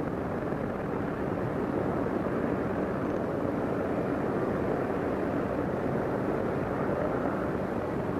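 Steady rushing wind noise on the microphone, mixed with the hiss of an early optical sound-film track, with no distinct events.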